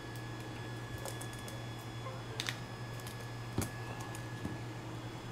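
Scattered light clicks and taps, the sharpest about two and a half and three and a half seconds in, over a steady low hum.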